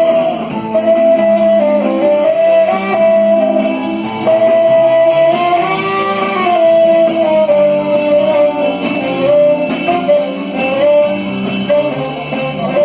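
Live band music: a guitar-led passage, with one clear melody line held and sliding over strummed chords.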